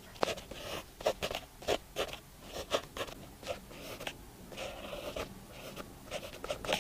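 Pen writing on paper by hand: quick, irregular scratching strokes, several a second, as Chinese characters are written out.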